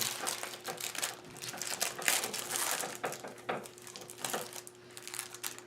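Packaging of a trading-card box crinkling and rustling as it is opened and the contents are pulled out, with many small irregular crackles.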